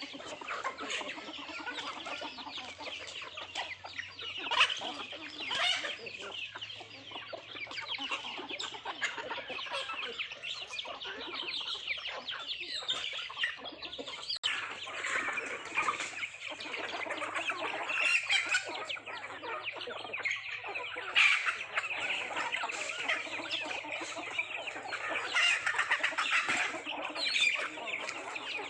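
Indian country hens (nattu kozhi) clucking steadily while feeding, with a dense patter of quick pecking clicks throughout.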